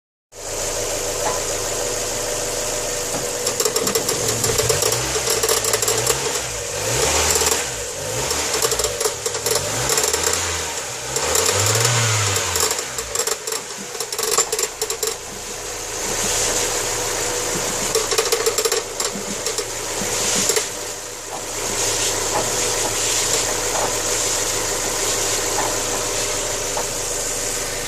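Mazda MX-5 NBFL's 1.8-litre four-cylinder engine running with a suspect metallic noise from the engine. The revs rise and fall several times in the first half, then it settles to a steady idle.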